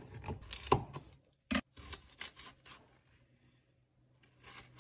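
Kitchen knife cutting small cucumbers on a wooden cutting board: a handful of crisp cuts and knocks of the blade on the board in the first three seconds, then a brief rustle near the end.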